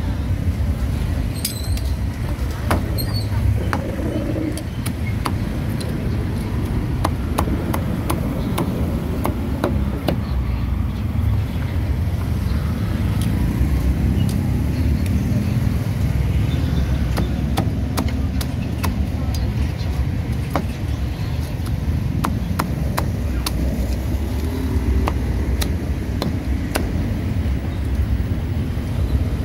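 Cleaver chopping roast pork on a thick wooden chopping block: irregular sharp knocks, with a metal tongs clink here and there, over a steady low rumble of street traffic.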